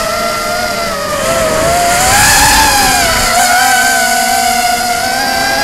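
Motors and propellers of a 250-size FPV racing quadcopter whining in flight, heard up close from the drone's own camera. The pitch rises and falls with the throttle, swelling louder about two seconds in.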